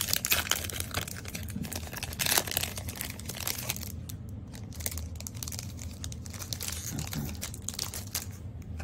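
Foil wrapper of a Pokémon booster pack being torn open and crinkled in the hands. There is dense crackling for about the first four seconds, then quieter rustling as the cards are slid out.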